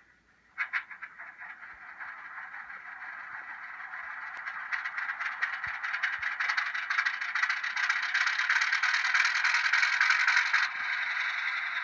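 HO-scale model locomotive's DCC sound decoder playing a diesel engine through its small onboard speaker, thin and without bass. A few clicks give way to a rattling engine sound that builds over several seconds, then drops back to a steadier, lower running sound near the end, like a prime mover start-up settling to idle.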